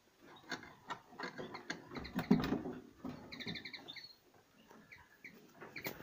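Small caged songbirds giving short chirps and, about three seconds in, a quick trill of repeated high notes, over scattered clicks and taps with a louder knock a little past two seconds.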